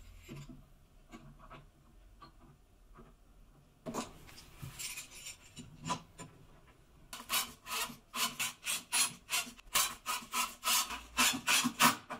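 Screw-handled bar clamp being set and tightened on a wooden frame: a sharp knock about four seconds in as the clamp is put in place, then a run of quick rubbing strokes, about three a second, as the screw handle is twisted down.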